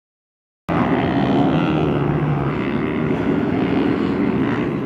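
Two-stroke single-cylinder engine of a 2015 KTM 200 XC-W dirt bike running at a steady buzzing pitch, cutting in abruptly under a second in.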